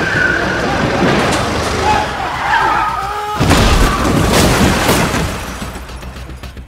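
Action-film car sound effects: a car's engine running with tyres squealing, then a sudden heavy crash with shattering glass about three and a half seconds in.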